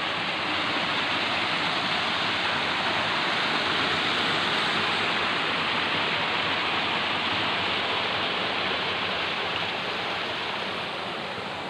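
Water rushing steadily through an irrigation-like channel, easing off slightly near the end.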